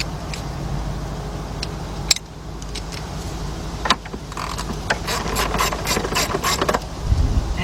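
3/8-drive hand ratchet with a 10 mm deep socket on an extension, clicking as it loosens bolts: a few single clicks, then a quick run of clicks from about four and a half seconds to nearly seven.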